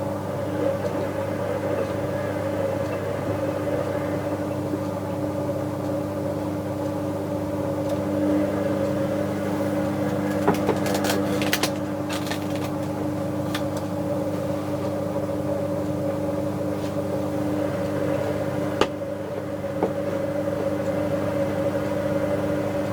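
Bauknecht WA 7778 W washing machine running with a steady motor whine at a constant pitch over a low hum, with a few short clicks or rattles about ten to thirteen seconds in. Its drum bearing was beginning to wear, which the owner says was not yet bad at this point.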